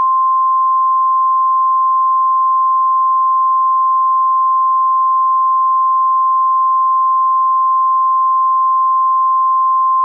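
Emergency alert attention tone: a single pure, high-pitched tone held steady and unbroken.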